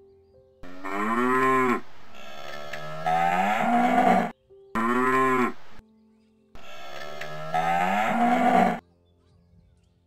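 Young black-and-white cow mooing: two long moos, each arching up and then falling in pitch, the second broken by a short pause.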